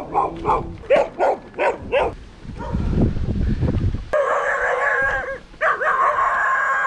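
Dogs barking at a passing bicycle: a quick run of short barks in the first two seconds, then a low rumble, then two long, wavering howls.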